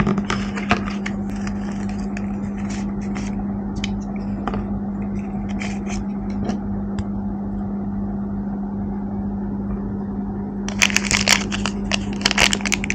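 Hands handling a cardboard packaging tray, with scattered taps and light scrapes. From about 11 s in comes dense crinkling as a translucent plastic wrapper around the smartwatch charger is opened. A steady low hum runs underneath.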